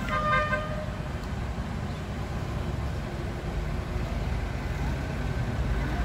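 A short horn toot in the first second, a steady pitched tone with several overtones, over a steady low rumble.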